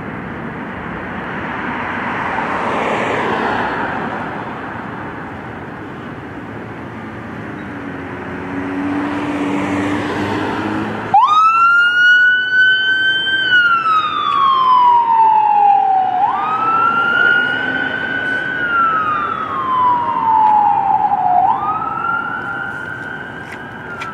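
Fire engine siren wailing in slow cycles, each a quick rise and a long fall, about every five seconds. It starts abruptly about halfway in. Before that, vehicle noise swells and fades twice.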